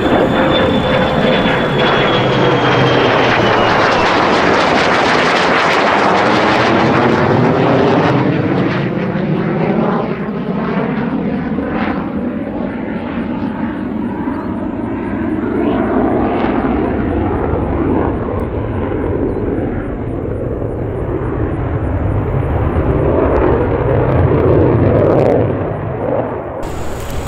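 US Navy F-35C Lightning II jet flying past in a banking turn, its turbofan engine loud throughout. A whine drops in pitch over the first few seconds as it goes by, and the sound fades somewhat and swells again as the jet circles back.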